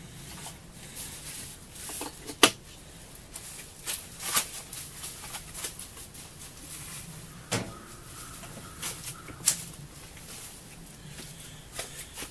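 Scattered knocks and clicks of hands-on handling work, the sharpest about two and a half seconds in, with no engine running.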